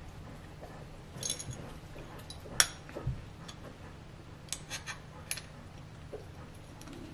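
Light clicks and knocks of small plastic and metal parts being handled: a phone clamp taken off the gimbal and its pieces fiddled with. One sharp click comes about two and a half seconds in, and a quick run of light clicks about halfway through.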